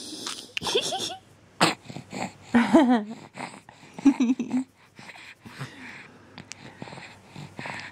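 Young baby of about three months cooing and giggling in a few short, breathy bursts.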